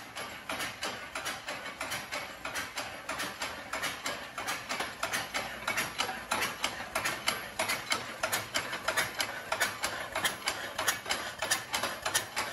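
Vertical-cylinder steam engine of a Tom Thumb locomotive reproduction running under power, a steady rhythm of exhaust puffs and mechanical clatter from the cylinder and chain-and-sprocket drive, about three to four beats a second.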